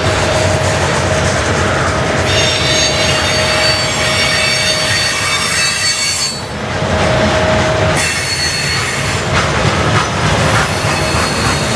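Freight train cars rolling past close by, centerbeam flatcars loaded with lumber, with squealing wheels. High, thin squeals come and go, strongest from about two to six seconds in and again from about eight seconds on.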